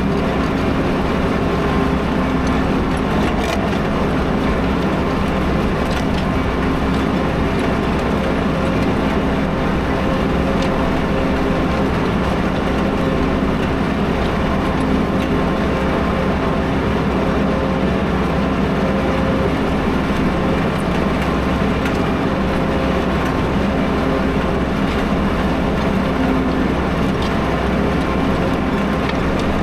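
3070 tractor's engine running steadily under load while pulling a plough through the field.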